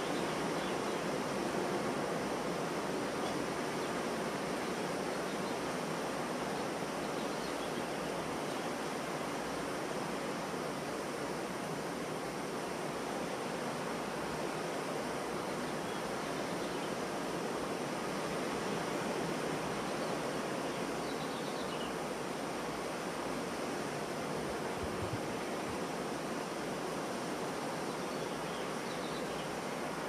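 Ocean surf breaking on a beach, a steady, unbroken wash of waves.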